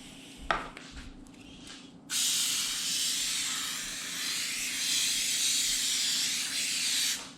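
Aerosol cooking-oil spray hissing in one steady burst of about five seconds, starting about two seconds in, greasing a baking dish so the cake won't stick. A light knock comes about half a second in.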